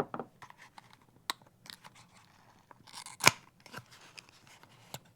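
Small box packaging being cut and pried open with a knife: scattered clicks, crinkles and scrapes, with one sharp snap a little past three seconds in.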